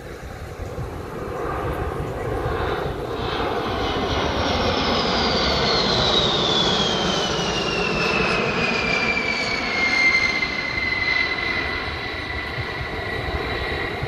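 Boeing B-52 Stratofortress bomber flying past on its eight turbofan engines. The jet noise builds over the first few seconds while a high whine slides steadily down in pitch as the aircraft passes, then holds level. The sound eases off slightly near the end.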